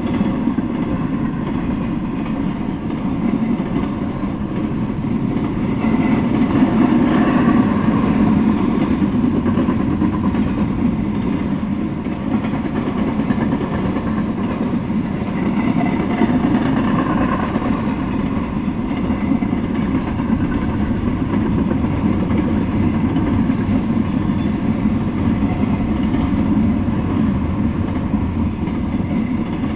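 Intermodal freight train of container well cars and trailer flatcars rolling past, a loud, steady rumble of wheels on the rails.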